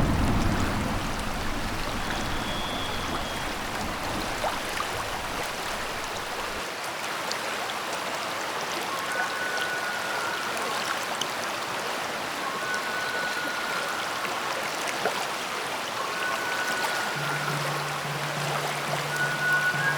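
Steady rushing water, like a stream, with a low rumble dying away over the first few seconds. Thin high steady tones come and go from about nine seconds in, and a low steady hum enters near the end.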